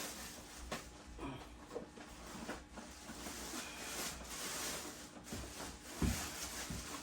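Rustling and handling of packaging and plastic parts while unboxing a carpet cleaner, with small clicks and one low knock about six seconds in.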